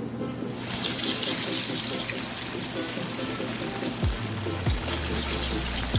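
Salmon patties sizzling in hot oil in a skillet: a loud, steady frying hiss that starts suddenly about half a second in.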